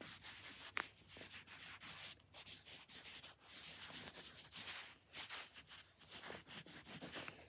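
Yellow wooden pencil writing on paper: a run of quiet, quick scratching strokes.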